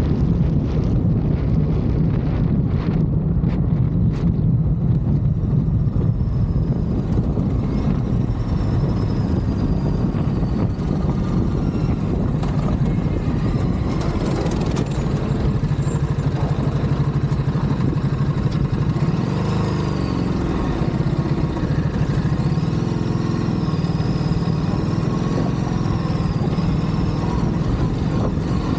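Ducati DesertX's 937 cc L-twin engine running on a gravel track, a steady low drone. In the last third its pitch rises and falls several times as the throttle is opened and closed.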